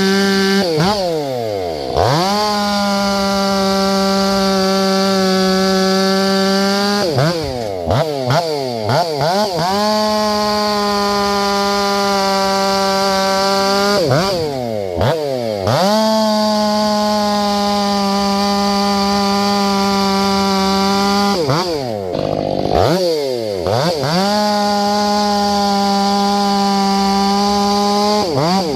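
Large chainsaw running at full throttle through cuts in firewood logs. The engine pitch sags and climbs back four times, about every seven seconds, as each cut ends and the saw goes back into the wood.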